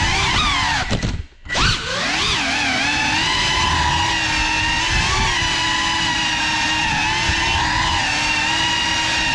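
GEPRC Cinelog35 cinewhoop quadcopter on 6S, its four motors and ducted propellers whining as heard from the onboard GoPro. The pitch shifts up and down with the throttle. About a second in it drops away almost to silence for a moment, then climbs back with a rising whine.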